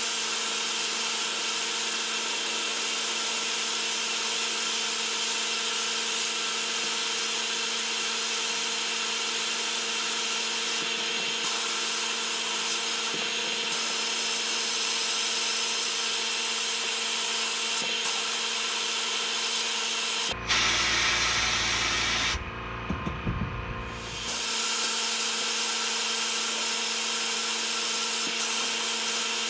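Sandblasting gun in a blast cabinet, a steady hiss of abrasive media stripping paint and rust off a small pressed-steel toy part, over a steady hum. The blast breaks off for about two seconds, with a low rumble, about three-quarters of the way through, then resumes.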